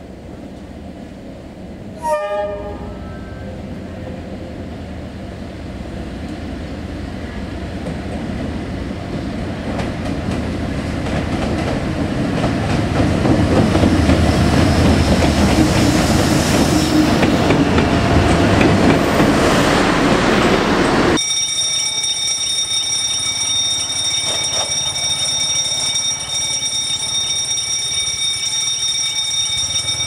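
Vietnam Railways D19E diesel-electric locomotive arriving at a platform: a brief horn toot about two seconds in, then the engine and wheel rumble growing steadily louder as it draws close and passes. Near the end of that passage the sound changes abruptly to steady high-pitched tones over a fainter low rumble.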